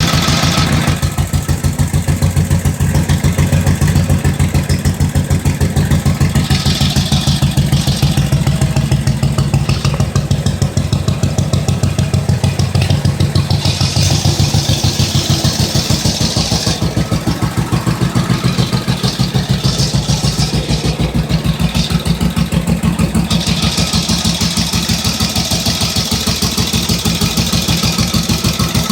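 1945 Indian Chief's side-valve V-twin engine idling with an even, steady pulse. It runs freshly rebuilt, with new piston rings, honed cylinders and lapped valves.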